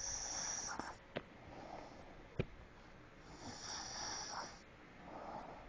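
Soft snoring: two slow breaths about three seconds apart, each with an airy hiss, and two brief sharp clicks between them.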